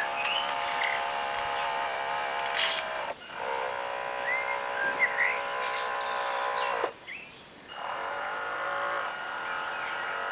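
Radio-controlled model aircraft carrier's drive motor running with a steady whine, cutting out briefly about three seconds in and again about seven seconds in, then starting up again. Birds chirp a few times over it.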